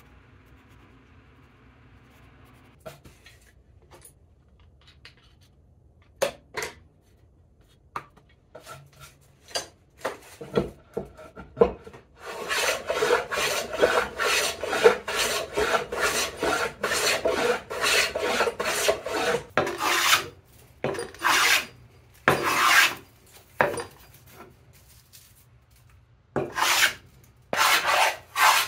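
Hand tool strokes scraping along the edge of a wooden panel. A few separate strokes come first, then about eight seconds of rapid back-and-forth strokes, then a few single strokes and a short quick group near the end.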